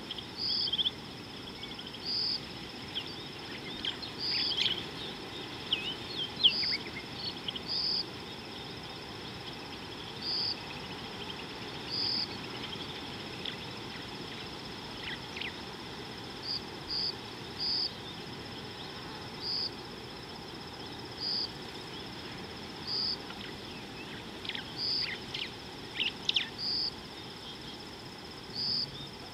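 Savanna bush ambience: a steady high insect drone with a short high note repeated every second or two, and scattered brief bird chirps.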